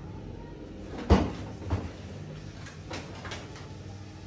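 A kitchen cupboard door knocking shut about a second in, then a lighter knock just after and a few faint clatters.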